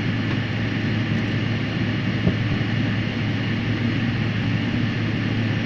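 Steady cabin noise of an airliner rolling along the taxiway after landing: engine and air noise with a constant low hum, and one light knock a little over two seconds in.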